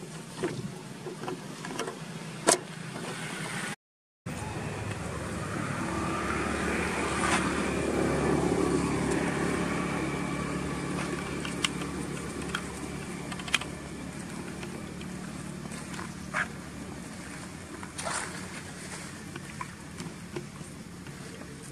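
A motor vehicle driving past, its engine hum swelling over several seconds and then slowly fading, with scattered sharp clicks throughout. The sound cuts out completely for a moment about four seconds in.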